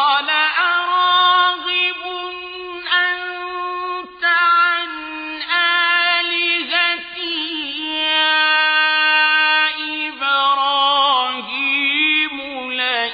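A male Quran reciter chanting in the melodic mujawwad style, holding long high notes with wavering ornaments and slow pitch turns.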